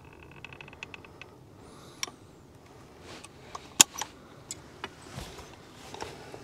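Manual sealant gun working as sealant is forced into holes drilled in a log wall: a quick run of small ratcheting ticks in the first second or so, then a handful of sharp clicks from the trigger and plunger, the loudest a little under four seconds in.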